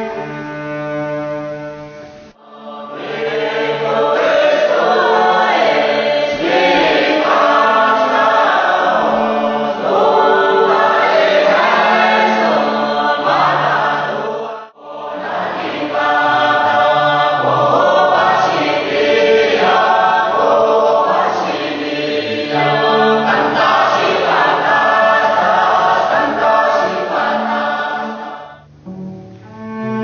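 A Bunun traditional chorus sings a song in two long phrases with a brief break about halfway through. A cello holds sustained bowed notes at the start and comes back near the end.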